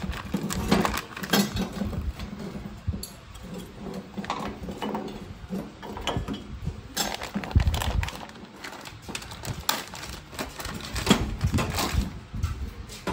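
Irregular clinks, taps and knocks of metal scooter parts and tools being handled on a work surface.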